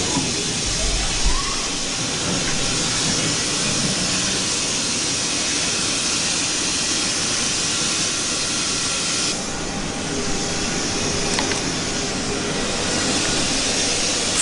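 Steady hiss of air from the Kitamura CNC milling machine with its enclosure door open, easing for a moment about nine seconds in, with a dull knock about a second in.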